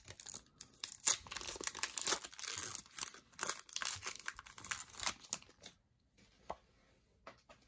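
Foil wrapper of a Pokémon card booster pack being torn open and crinkled as the cards are pulled out, a dense crackling that stops about three-quarters of the way through, leaving only a couple of faint ticks.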